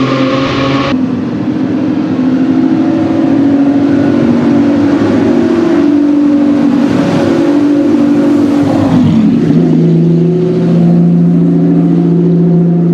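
Aston Martin V12 Zagato GT3's V12 engine through its Quicksilver exhaust, moving at low speed. The note rises and falls, then settles to a steady low note about nine seconds in.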